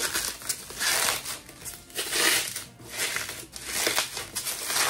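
Plastic shrink-wrap on a perfume box crinkling and tearing as it is worked off by hand, in repeated bursts of rustling about a second apart.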